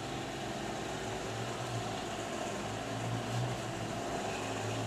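A steady low hum with an even hiss of background noise, unchanging throughout.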